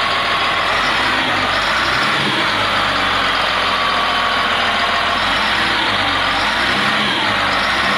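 Caterpillar 950H wheel loader's diesel engine running steadily.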